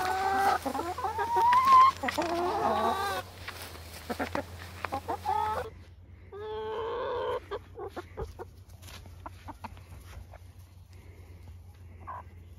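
Chickens clucking and squawking, with several drawn-out calls in the first few seconds and one more about six seconds in, then only faint light ticks.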